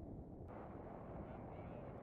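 Wind rushing over the camera microphone in paraglider flight, a steady low rumble that turns brighter and hissier about half a second in.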